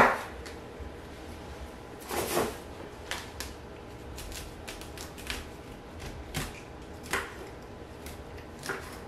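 Kitchen knife cutting through broccoli stalks against a wooden cutting board: scattered, irregular cuts and knocks of the blade, the loudest about two seconds in.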